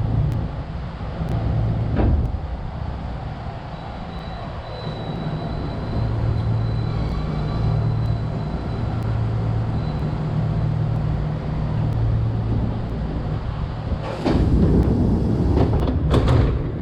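Inside a Kintetsu Kyoto Line train coming to a stop at a station: a steady low rumble with a faint thin whine in the middle. Near the end a loud burst of noise as the sliding passenger doors open, ending in a couple of sharp knocks.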